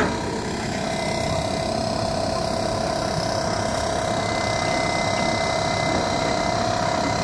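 Machinery running steadily: a constant mid-pitched whine over an even rumbling hiss.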